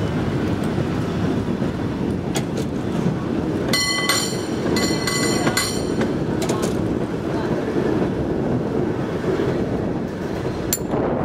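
San Francisco cable car running along its rails with a steady rumble. About four seconds in, a ringing clang repeats in three quick groups over two seconds, fitting the cable car's bell, and a few sharp clicks and knocks are scattered through.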